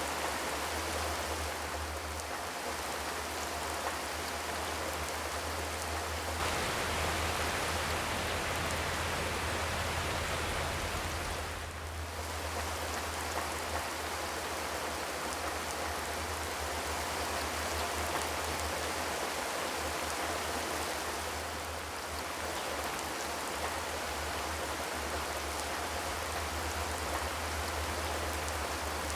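Steady rain falling on a corrugated zinc roof, a dense, even patter that eases briefly twice.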